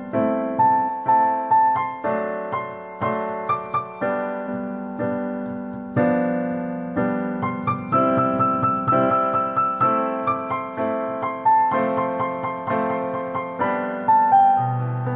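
Background piano music: a slow, gentle melody over chords, each note struck and then fading away.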